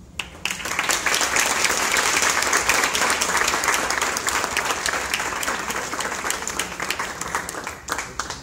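Audience applauding. The clapping breaks out right away, is full within about a second, and tapers off near the end.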